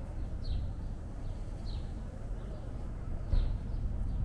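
A songbird repeating a short falling chirp about once a second, over a steady low street rumble.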